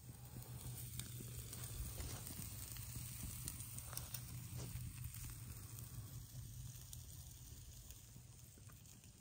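Steak and bacon sizzling quietly on a wire grill rack over a small wood fire, with scattered faint crackles.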